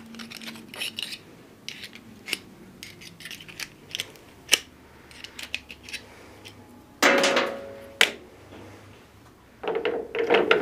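Metal-on-metal clinks and knocks from hand tools and a hole saw arbor being handled and fitted on a metal lathe. Scattered small clicks throughout, a louder metallic clatter about seven seconds in with a sharp knock a second later, and another clatter near the end.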